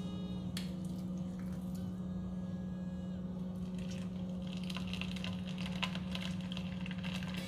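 Floured chicken going into hot oil in a small saucepan, the oil starting to sizzle and crackle from about four seconds in, over a steady low hum.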